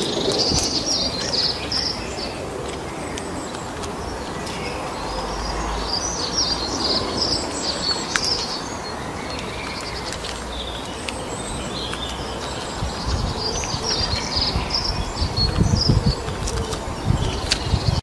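Many birds chirping in short high calls over a steady outdoor hiss, with low rumbling in the last few seconds.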